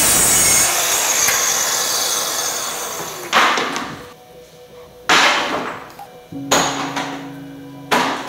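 Sliding mitre saw chopping short spindle spacer fillets against a stop. One cut dies away over the first three seconds, then come four short, sharp cuts about a second and a half apart.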